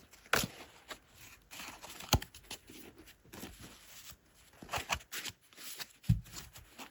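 Tarot cards being handled: shuffled and laid out on a table, a scatter of soft flicks, swishes and taps, with a duller tap about six seconds in.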